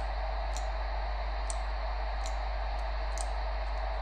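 Steady hiss of FM radio static with no signal coming through, over a low hum. Four light ticks fall about once a second.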